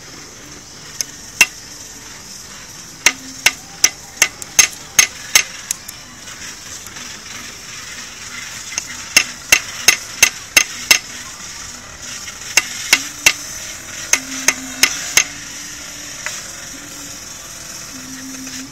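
Light hammer taps in quick runs of several strikes, about three a second, with pauses between the runs. A steady high hiss runs underneath.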